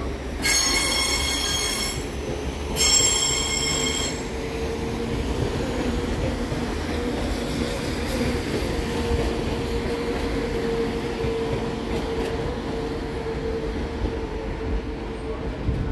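Northern passenger train rolling slowly through station pointwork: its wheels give two short, high-pitched squeals in the first four seconds, then a steady low drone and rumble as the carriages pass.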